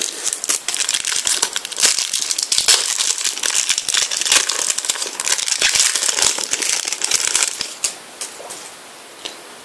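Foil trading-card packet crinkling and crackling as it is opened by hand and the cards are pulled out; the crinkling stops about two seconds before the end.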